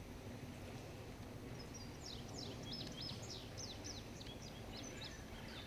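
Faint outdoor ambience with a songbird singing a quick run of high, downward-slurred chirps for a few seconds, starting about a second and a half in, over a low steady background noise.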